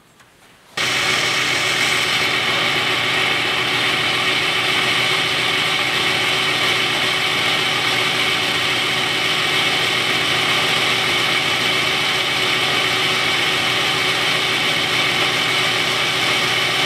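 Small metal lathe running steadily while a twist drill in the tailstock chuck bores into the end of a spinning metal rod. The sound starts abruptly about a second in, then holds an even motor and gear whine.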